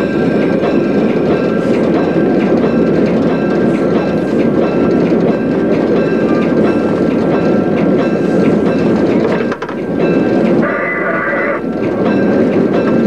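EMD E8 diesel locomotive running, heard from its cab: a loud steady rumble of the engines and the wheels on the rails, with a few faint steady higher tones over it. A brief higher-pitched sound lasting about a second rises over it near the end.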